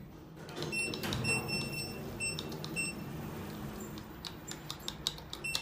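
Elevator electronic beeper sounding a run of short, high beeps at uneven spacing, followed near the end by a string of sharp clicks and knocks and one more beep.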